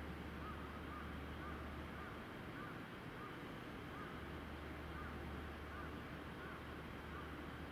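Faint, steady rumble of an E7 series Shinkansen train approaching slowly from a distance. Over it, a short rising-and-falling call repeats about once or twice a second.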